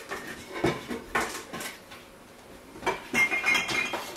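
Pots and pans clattering as they are handled in a low kitchen cabinet: a few separate knocks, then a denser clatter with a ringing note about three seconds in.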